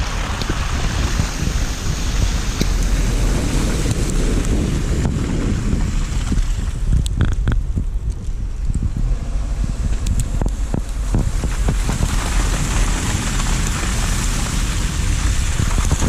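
Wind noise on the microphone of a camera riding on a moving vehicle: a loud, steady rumble, with a scattering of sharp clicks in the middle.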